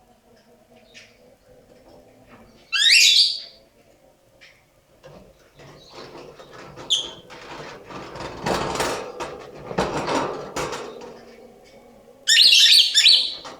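Female lovebird giving two short, harsh, high calls, one about three seconds in and one near the end: an odd call unlike the usual lovebird chatter. Between them comes a fainter rustling, scratching noise with scattered clicks.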